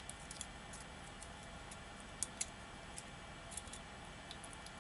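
Faint, irregular light metallic clicks and ticks, about a dozen scattered through, as small lock tools and parts are handled: a shim being worked into the split back of a padlock-style challenge lock.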